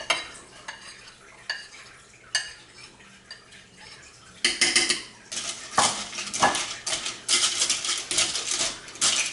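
A spoon scraping and tapping a bowl with a few light clicks, then from about four and a half seconds a spoon stirring pasta in broth inside an Instant Pot's stainless steel inner pot, with rapid clinks and scrapes against the metal.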